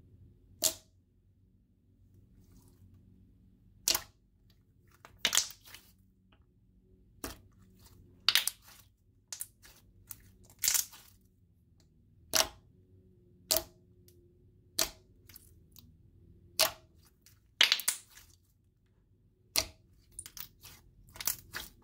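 Thick slime being pressed and folded by hand, giving sharp pops of trapped air bubbles bursting, one every second or two, coming faster near the end.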